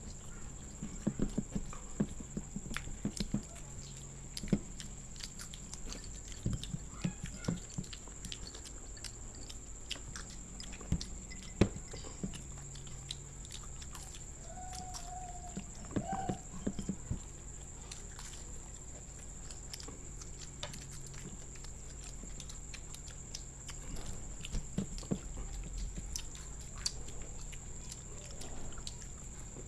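People biting and chewing crisp fried samosas, with bursts of crunching and mouth noises during an eating race. A short hummed sound comes about halfway through.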